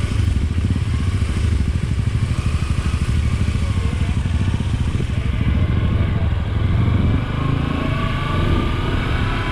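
Motorcycle engine running steadily under way, with fast even firing pulses; a higher pitched engine note comes in over it for the last couple of seconds.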